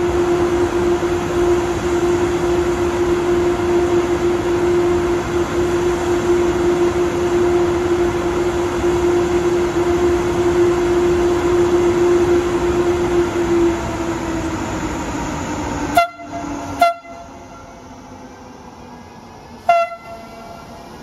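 A train passing through the station sounds a long, steady horn over loud rail noise. About fourteen seconds in, the horn's pitch drops as it goes by and it fades. Near the end come two or three short, sharp bursts.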